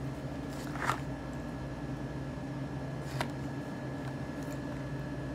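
Steady low background hum with two short clicks, about a second in and about three seconds in.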